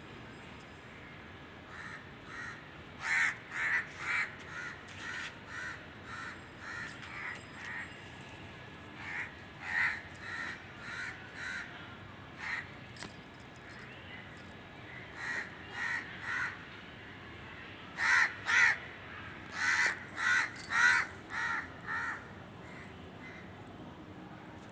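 Crow cawing over and over, short harsh calls mostly in runs of two or three, loudest in a burst toward the end.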